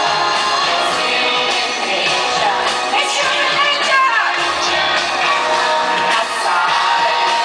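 Live concert sound: loud amplified pop music with a singing voice, playing steadily.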